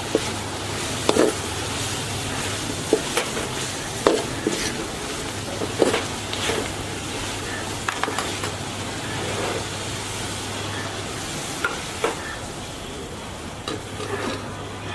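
Masala sizzling as it fries in a pan while a spoon stirs in freshly added spice powders, knocking and scraping against the pan at irregular intervals.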